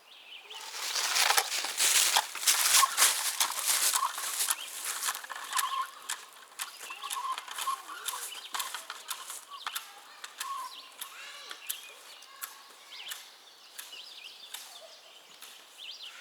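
Rustling, clicking and knocking of handling and movement while a Stihl MS362 chainsaw is readied for starting, loudest in the first few seconds and then quieter. Short faint bird calls sound now and then.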